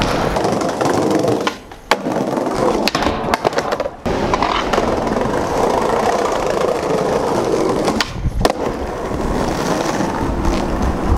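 Skateboard wheels rolling on concrete, with sharp clacks of the board hitting the ground. The rolling drops out briefly a few times.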